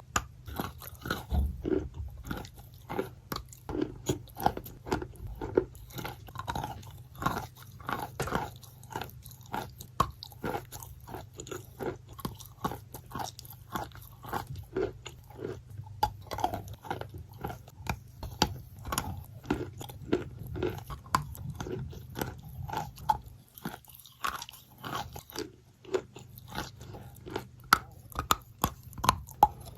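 Soft, wet crunching of soaked chalk: a long run of short crunches, irregular at roughly one to three a second, with a faint low steady hum underneath.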